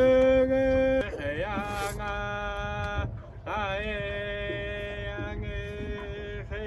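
A man's voice singing long, held notes, each sliding into pitch and then sustained steadily, the last held for about three seconds.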